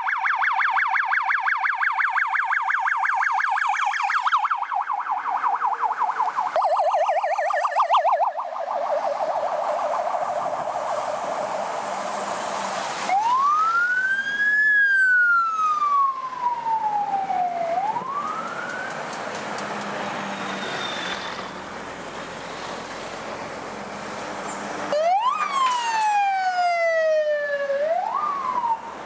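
Police vehicle sirens passing in convoy. A fast warbling yelp fills the first several seconds and fades out. Then come two separate slow wails, each rising and then falling, with the second starting near the end.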